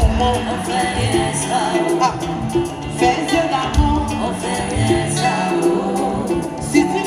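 Live band music with guitars and a steady bass beat, with a woman singing lead into a microphone.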